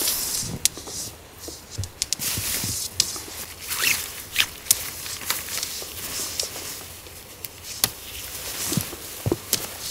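Nylon tent fabric rustling and swishing as shock-corded tent poles are fed through it and bent into arches, with scattered sharp clicks and knocks from the poles.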